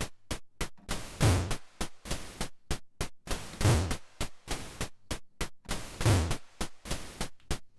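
Synthesized drum pattern from a Behringer Poly D analog synthesizer: quick, short noise ticks of a closed hi-hat, with three fuller snare hits, pink noise with the overload adding body and a low thump, landing about every two and a half seconds.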